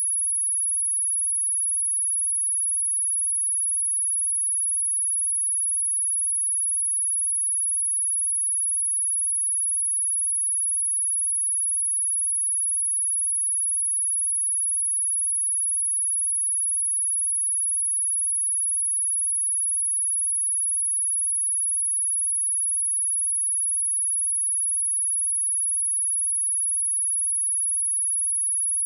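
Steady pure sine-wave test tone at 10494 Hz, a single high-pitched whistle held at constant pitch and level. It is a speaker-test tone, also played to shake water and dust out of a phone speaker.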